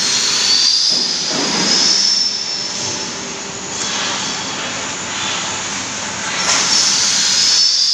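Factory machinery running loud and steady, with a high-pitched metallic squeal that rises and fades, strongest at the start and again about six seconds in.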